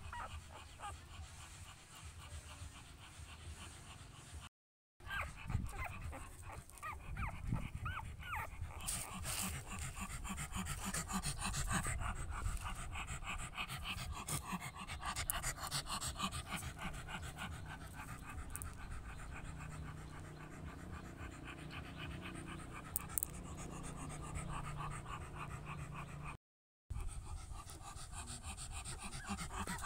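Adult dog panting fast and steadily, with two brief silent gaps.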